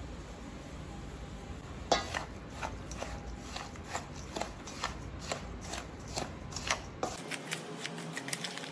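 Wooden spoon stirring a dry mix of roasted semolina, sugar and nuts in a stainless steel bowl, scraping and clicking against the metal. The clicks start about two seconds in and come irregularly, two or three a second.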